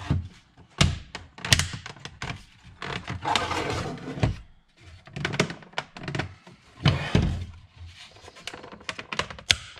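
Hard plastic knocks, clicks and rattles as the parts of a Totally Integrated Power Module (TIPM) housing are lined up, pushed together and turned over by hand. A few sharp knocks stand out, with scraping and rattling between them.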